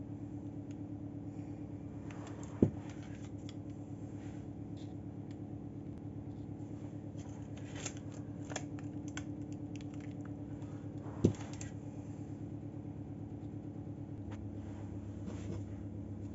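Kitchen handling noises over a steady low hum: two sharp knocks, one a few seconds in and one past the middle, and bits of light scraping and rustling as a metal baking tray of dough is handled.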